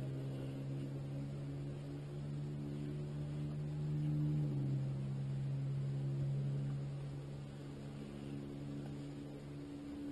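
An engine's steady drone, its pitch dipping slightly about four and a half seconds in.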